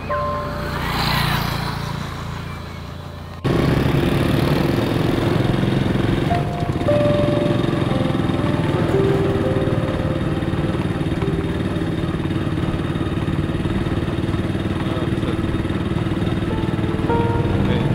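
Soft music, then about three and a half seconds in a sudden cut to the steady sound of riding a motorbike: its small engine running with wind and road noise, and a few quiet music notes still over it.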